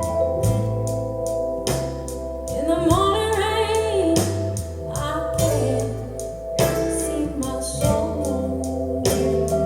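A recorded song playing: a singing voice over bass, held organ chords and a steady drum beat.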